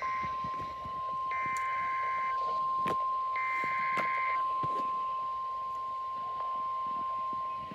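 NOAA Weather Radio emergency alert: the steady single-pitch warning alarm tone sounds, with the buzzy SAME data-header bursts over it, the tail of one at the start and then two more, each about a second long, about two seconds apart. It heralds a flash flood warning broadcast.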